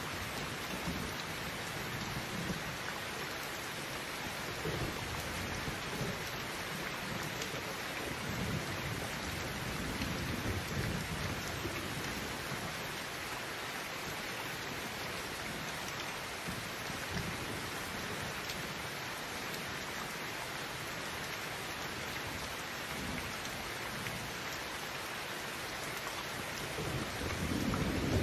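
Heavy rain pouring steadily onto a roof, with low rolls of thunder rumbling now and then and a louder roll starting near the end.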